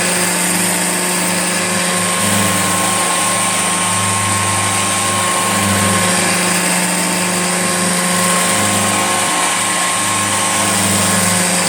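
An old Hoover Junior upright vacuum cleaner running steadily: a loud motor hum over a wide rushing hiss with a high whine, the low hum swelling and dipping every second or so.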